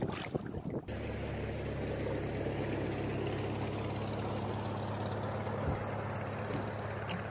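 A fish splashes briefly as it is let go into the river. Then a motorboat engine runs with a steady low hum over wind and water noise.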